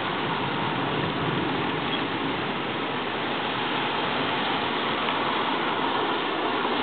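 Steady rain falling on a wet street, an even hiss that does not let up.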